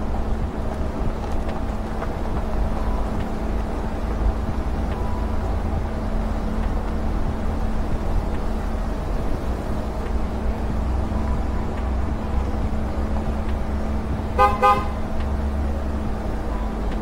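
Vehicle driving slowly over gravel with a steady low engine and road rumble. Near the end comes a short horn toot.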